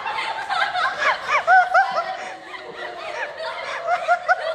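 People laughing in quick rising-and-falling bursts of giggles and chuckles, loudest about a second and a half in and tapering off toward the end.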